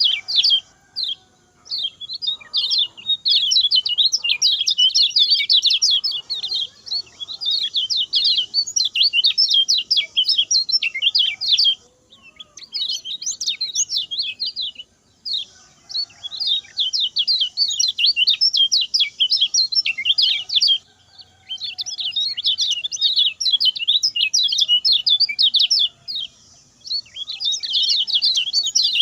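Common iora (kecial kuning) singing rapid, chattering runs of short high notes, in long bursts broken by brief pauses.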